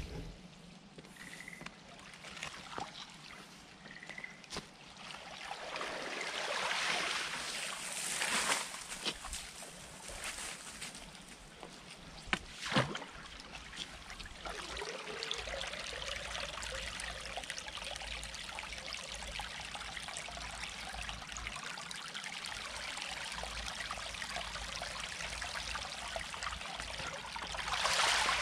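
Muddy water trickling and running along a narrow concrete irrigation ditch, with louder swells of splashing as leaves and mud are raked out. One sharp knock comes about halfway through.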